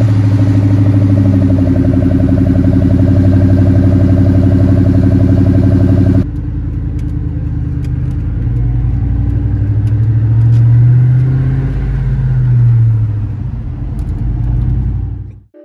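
2001 Mustang SVT Cobra's 4.6-litre DOHC V8 idling steadily just after starting, heard from behind at the tailpipes. About six seconds in the sound shifts to inside the cabin as the car pulls away, the engine revs rising and falling twice.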